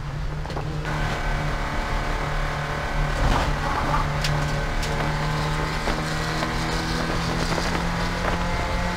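Porsche 944 Spec race car's four-cylinder engine pulling at high revs under racing load. Its note fills out and grows a little louder about a second in, then holds steady, with a few brief clicks around the middle.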